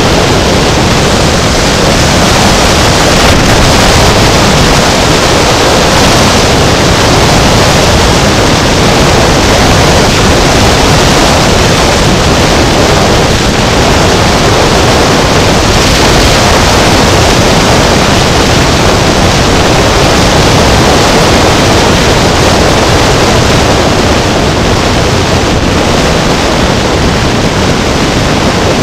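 Loud, steady rush of wind noise on the microphone of a camera moving along a road.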